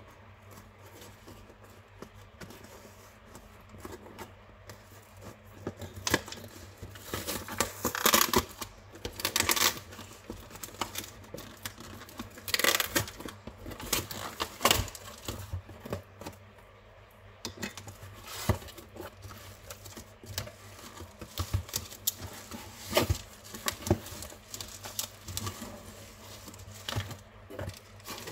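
Scissors cutting and tearing through the tape and cardboard of a shipping box, with the cardboard flaps rustling as the box is pulled open. Irregular bursts, the loudest tearing about eight to ten seconds in and again about thirteen seconds in.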